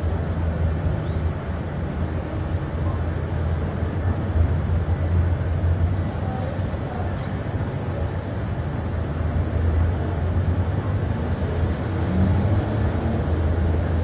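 A steady low rumble with a hiss over it, and faint, short, high chirps of small birds every second or two.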